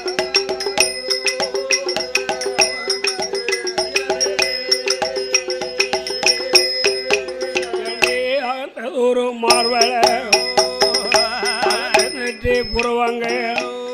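Villu paattu folk music: held melody notes over fast, dense rattling percussion strokes. About eight seconds in, the percussion thins and a wavering melodic line takes over.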